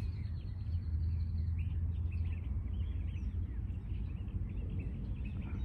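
Small birds chirping over a steady low rumble of background noise, with a thin high note held through the first second and a half.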